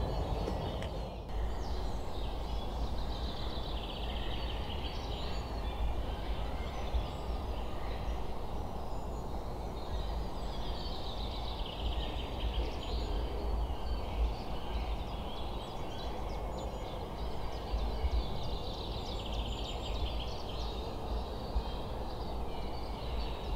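Wild songbirds singing in repeated short phrases over a low steady rumble.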